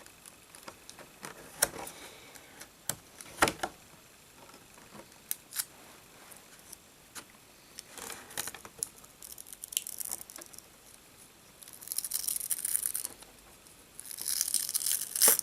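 Scattered light clicks and taps of plastic packaging being handled. Two bursts of crinkling and tearing come in the last few seconds, as tape holding the action figure's cape down is peeled away.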